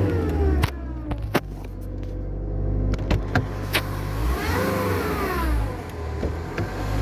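Mercedes A-Class 1.7 CDI four-cylinder turbodiesel revved and let fall back to idle: the revs drop away in the first half second, rise and fall again about four and a half seconds in, and start climbing once more at the end. Several sharp clicks or knocks sound in the first four seconds. This is the strange engine sound whose cause the owner does not know.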